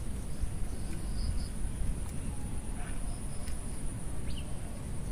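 Outdoor ambience: a low, unsteady rumble of wind on the microphone under a steady high-pitched insect drone, with a few faint chirps.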